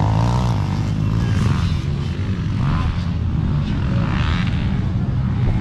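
Off-road motorcycle engines running out on the dirt track, a steady low engine sound with no pause.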